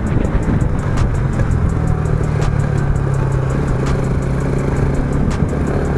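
Motorcycle engine running at a steady speed while riding, its hum held even for most of the stretch, over a constant low wind rumble on the microphone.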